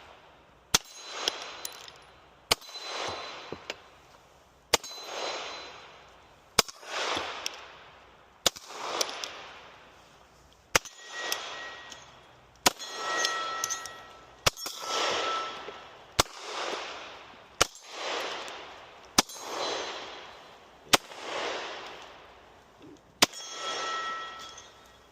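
Thirteen single gunshots in slow, steady fire, about one every two seconds, each followed by a long rolling echo that swells and dies away. Several shots carry a clear metallic ring.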